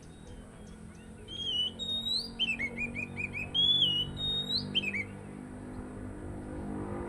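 Oriental magpie-robin (kacer) singing a phrase of clear whistles, with a quick run of about five down-slurred notes in the middle; the phrase starts about a second in and ends around five seconds. A steady low hum runs underneath.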